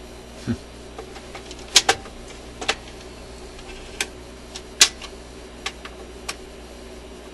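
Admiral suitcase record player's changer mechanism clicking and clacking about eight times as the On/Off/Reject control is worked, over a steady low hum. The control is sticking, so the mechanism never gives the loud shut-off click and the player does not switch off.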